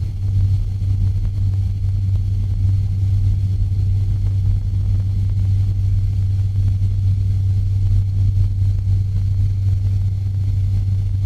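The four turboprop engines and propellers of a C-130 Hercules at takeoff power, heard inside the cockpit as a steady, loud low drone.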